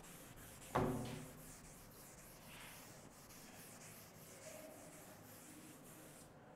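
Wooden-backed duster wiping a chalkboard: faint, repeated rubbing strokes, with one sharp knock just under a second in.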